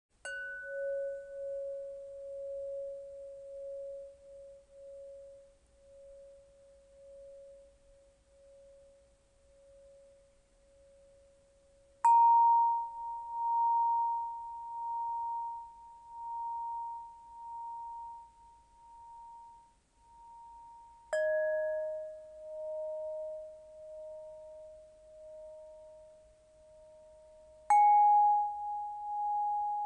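Kristallpentonia (crystal pentonia) sounding four long ringing notes, each starting with a sharp attack and ringing on for many seconds with a slow pulsing swell. The first note is the lowest, a clearly higher one comes about twelve seconds in, and two notes pitched between them follow, each overlapping the last.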